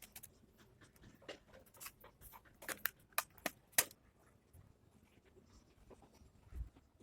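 Light plastic-and-metal clicks and taps of computer parts being handled and fitted, a dozen or so in the first four seconds, then a soft low thump near the end.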